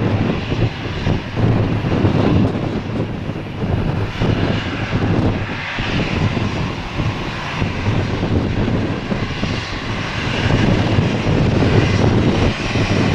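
Jet airliner engines running loud, with strong wind buffeting the microphone in uneven gusts.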